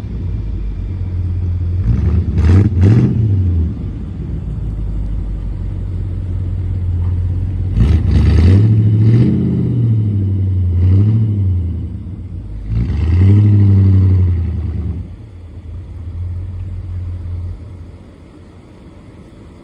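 Car engine running and being revved up and down several times, with the biggest rises about 8 seconds and 13 seconds in, then dropping back and getting quieter near the end.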